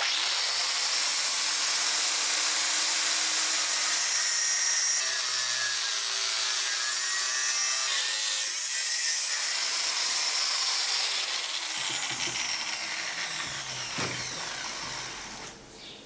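Angle grinder with a thin cutting disc cutting through a hardened 52100 steel bearing ring held in a vise, a loud steady grinding hiss. About twelve seconds in, the sound thins and fades with a falling whine, stopping shortly before the end.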